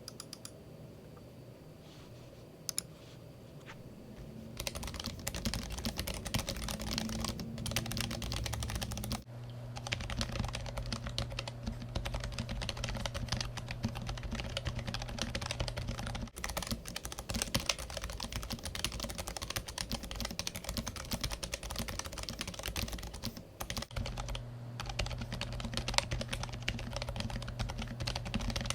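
Rapid continuous typing on a Keychron K7 low-profile mechanical keyboard with Gateron yellow low-profile optical switches, dense keystroke clicks. A few scattered clicks come first, and steady typing starts about four seconds in.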